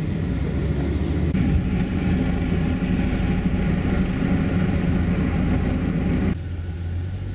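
Car road noise heard from inside the cabin while driving at speed: a steady engine hum with tyre and road rumble. It drops suddenly to a quieter level about six seconds in.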